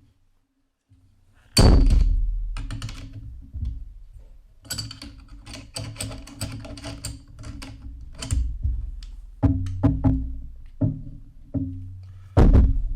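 Metal airsoft AK parts knocking and clicking together as a metal LCT AK74 magwell is forced onto the gun, with a loud knock about one and a half seconds in and another near the end.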